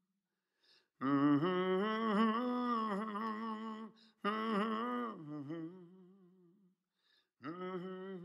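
A man's voice humming a slow, wordless melody with vibrato, unaccompanied. There is a long phrase about a second in, a shorter one that fades out after about four seconds, and another that starts near the end.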